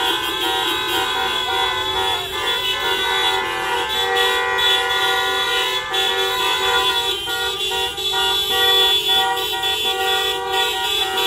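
Many car horns honking at once, long overlapping blasts held without a break, the kind of massed honking drivers give in support of a street protest.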